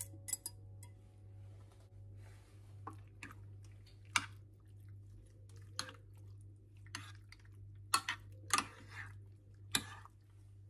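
A creamy mixture poured over pasta and broccoli in a ceramic baking dish, then stirred in with a fork: soft wet squishing with about eight sharp clicks of the fork against the dish, loudest near the end.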